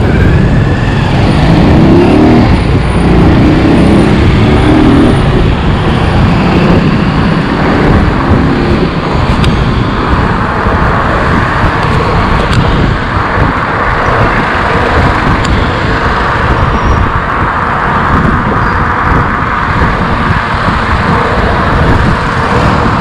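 Wind rushing over the microphone of a moving e-bike, with street traffic passing. A motor tricycle's engine is heard close by in the first few seconds.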